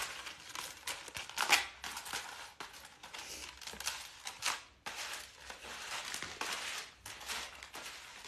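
Rustling and scraping of a cardboard jewelry backing card and its packaging being handled as a necklace is worked off it, in irregular bursts, loudest about one and a half seconds in and again near four and a half seconds.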